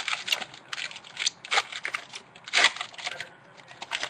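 A foil trading-card pack being opened and its cards handled: irregular crinkling and crackling of the wrapper, with the loudest crackle about two and a half seconds in.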